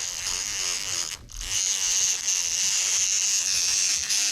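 Small handheld electric tool buzzing steadily as it scrubs the metal of an adjustable wrench during cleaning, with a brief break about a second in.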